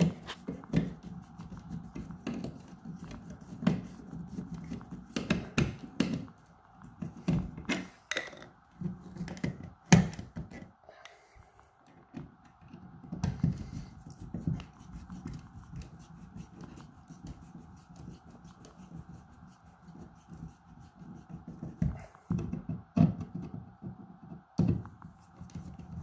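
Hand screwdriver driving a mounting screw of a power point into the wall: irregular clicks, scrapes and knocks of the screwdriver and fingers working at the plastic plate, with one sharp knock about ten seconds in.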